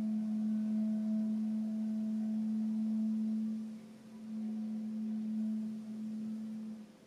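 Solo cello holding one long bowed note, steady and nearly pure in tone, briefly dipping about four seconds in as it is re-bowed, then stopping just before the end.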